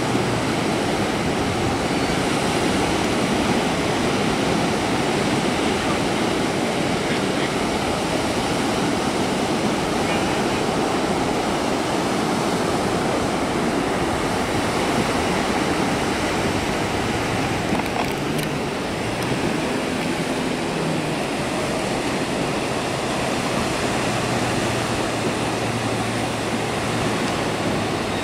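Ocean surf breaking and washing up the beach: a steady rush of noise.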